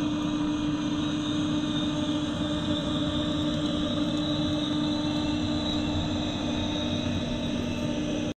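Beatbot AquaSense robotic pool cleaner's pump and drive motors running steadily as it crawls along the pool floor, heard underwater: a steady hum on one strong tone over a hiss, with a slightly lower second tone joining near the end.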